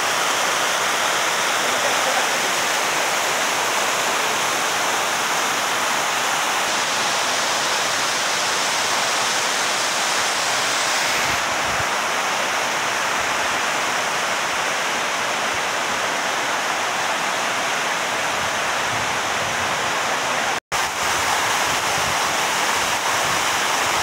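Waterfall rushing steadily as water cascades over stepped rock slabs, with a momentary cut-out near the end.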